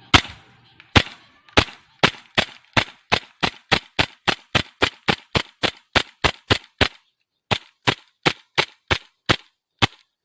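Trex hi-capa airsoft pistol firing a long string of about two dozen sharp shots, steadily at roughly three a second, with a brief pause about seven seconds in.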